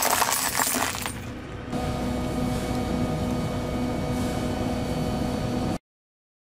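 Light-bulb glass crunching and crackling under a vehicle tyre for about the first second. It is followed by a steady hum with a few held tones, which cuts off suddenly near the end.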